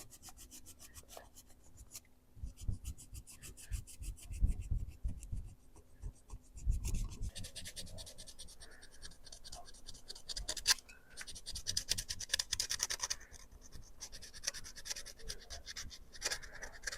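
80-grit sandpaper scraping over hardened Bondo filler on the lamp's metal frame in rapid back-and-forth strokes, sanding a crack repair flat. Dull low knocks come in the first half.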